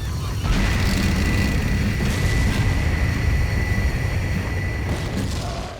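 Loud cartoon sound effect: a heavy rumbling noise with a steady high whistling tone over it that starts about half a second in, the whole thing fading out to silence at the very end.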